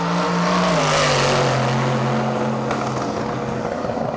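Drag-racing car's engine at full throttle running down the strip, its pitch dropping about a second in as it goes past, then running on steadily as it carries on down the track.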